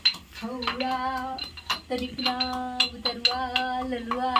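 A woman's voice singing long, steady held notes, over sharp metallic clinks of a pestle pounding in a small metal cup several times a second.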